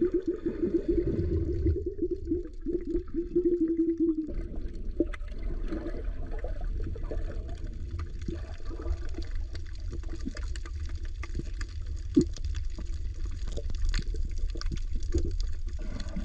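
Underwater sound through a submerged camera: a steady, muffled low rumble of moving seawater, with bubbling for the first four seconds that stops suddenly, and scattered sharp clicks and knocks.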